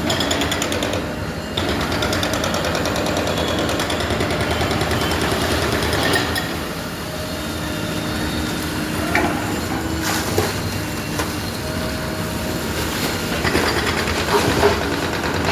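Construction site machinery running steadily, with a rapid mechanical rattle of fast repeated strokes, strongest in the first few seconds, and a few short knocks later on.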